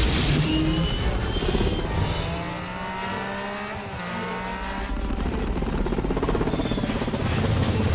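Film sound mix of a vehicle engine revving, its pitch gliding, over dramatic music.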